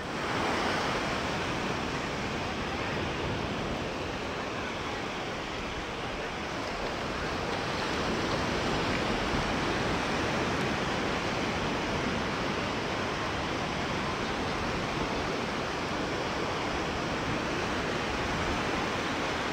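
Sea surf washing on the shore, a steady rushing noise that starts suddenly and keeps an even level.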